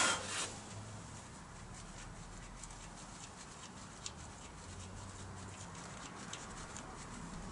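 Faint scratching and small clicks of a gloved hand threading a compression-tester adapter into a spark plug hole on a Ford Pinto engine, with a brief rustle at the start and one sharper click about four seconds in.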